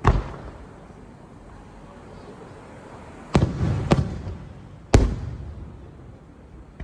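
Fireworks bursting: four loud booms, one right at the start and three more between about three and a half and five seconds in, each trailing off in a rumbling echo.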